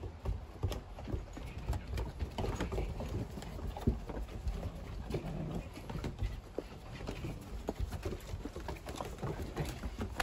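Puppies' paws and claws tapping and scuffling on wooden deck boards as they romp and play, an irregular patter of small clicks and knocks.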